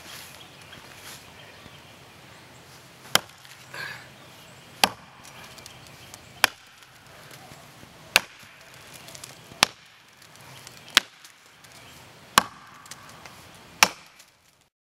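An axe chopping into the trunk of a black gum tree being felled: eight sharp strikes about a second and a half apart, starting about three seconds in. The wood is tough and rubbery, so each blow bites only a little.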